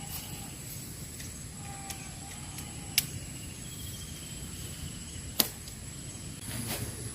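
Outdoor ambience with a steady high-pitched insect drone, broken by two sharp clicks about three and five and a half seconds in, and a short rustle near the end.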